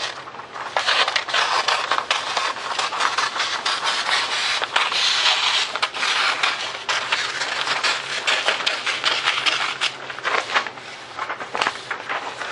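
Scissors cutting steadily through a large paper plan sheet: a long run of quick snips and the blades rasping through the paper.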